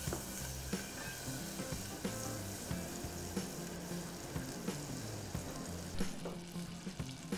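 Butter melting and sizzling in a nonstick saucepan as it foams, stirred with a silicone spatula that gives faint scattered taps.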